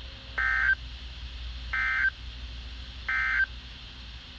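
NOAA Weather Radio SAME end-of-message data tones, heard through the radio's speaker: three short, identical buzzy digital bursts about a second and a half apart. They mark the end of the severe thunderstorm warning just broadcast.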